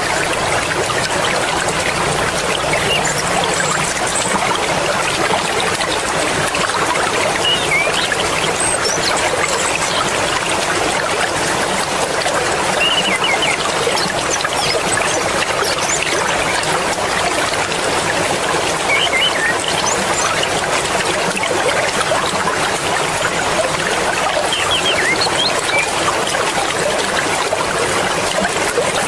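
Mountain river flowing fast, a steady rushing and babbling of water, with faint short high chirps now and then.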